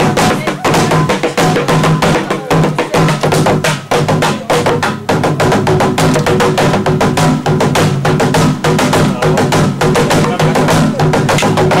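Large Rwandan ingoma drum with a laced cowhide head, beaten with sticks in a fast, dense, unbroken rhythm of strikes.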